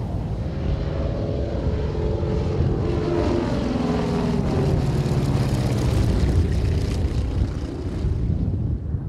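Propeller airplane flying low past overhead. The steady engine drone grows louder toward about six seconds in, and its pitch falls as it goes by.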